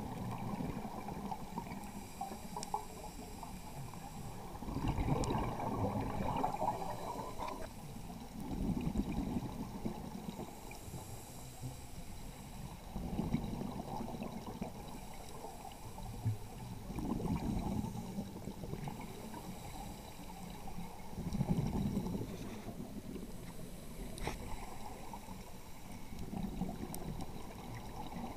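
Scuba diver breathing on a regulator, recorded underwater: a gurgling rush of exhaled bubbles about every four seconds, with a faint hiss of each inhale between them.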